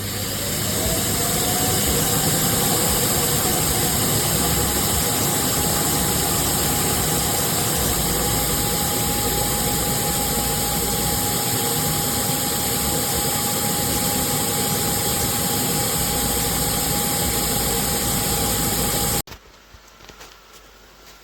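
Suction fan motor of a Laresar robot vacuum system spinning up with a rising whine, then running loud and steady with a constant whine and rushing air, and shutting off abruptly near the end.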